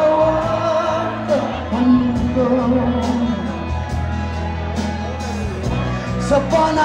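Male pop singer singing live into a microphone over amplified backing music with a steady bass and drum beat, holding and bending long notes.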